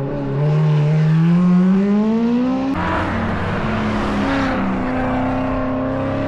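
Hill climb competition car engine accelerating hard, its note rising steadily. About three seconds in the sound switches abruptly to another car's engine under power, its pitch climbing slowly.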